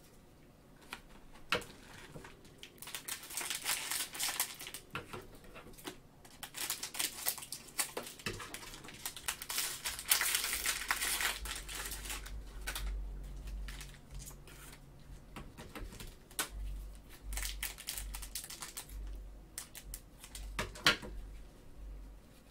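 Cellophane wrapper of a trading-card cello pack crinkling and rustling in bursts as it is handled and opened, with scattered small clicks and taps from cards being handled.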